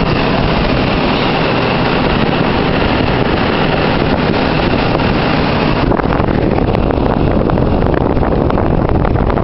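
Wind rushing over the microphone, loud and steady, over a mechanical drone from the rig and crane. A faint high whine drops away about six seconds in.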